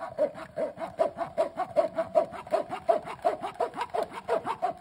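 Metal spoon scraping and stirring in a mesh strainer, pushing thick blended fruit juice through the mesh: quick, even scrapes, about five a second.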